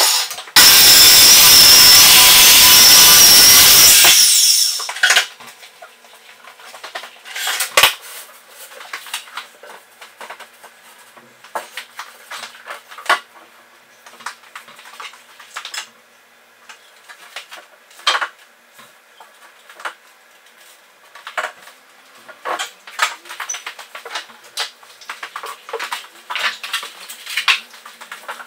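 A corded circular saw runs loudly, briefly dropping out just after the start, and stops about four seconds in. After that come scattered clicks, knocks and clatter from MDF boards and hand tools being handled and set against a wall.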